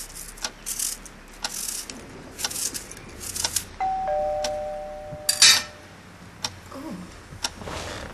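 Pendulum clock ticking about once a second. A little under four seconds in, a two-tone ding-dong doorbell chimes, high note then low, followed by a short loud noise.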